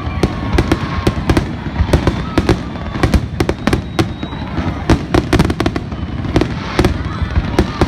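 Fireworks going off in a dense barrage: sharp cracks and bangs come several times a second over a continuous low rumble, with a few whistles gliding through.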